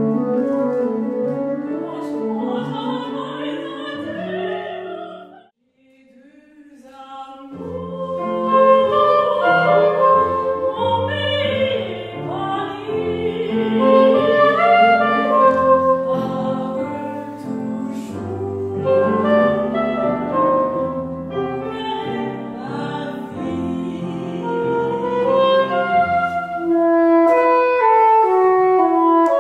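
Contemporary classical chamber music: a woman singing in operatic style with piano and soprano saxophone. The music cuts out briefly about five seconds in, then returns with low piano notes under the voice. Near the end the soprano saxophone plays prominently.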